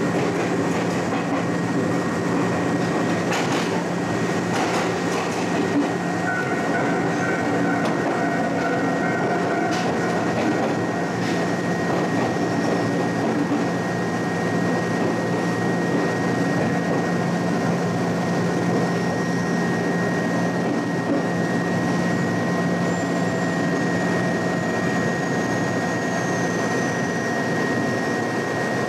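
Electric commuter train heard from the driver's cab, running and slowing into a station with a steady hum and whine. There are a few sharp clicks of the wheels over rail joints in the first dozen seconds.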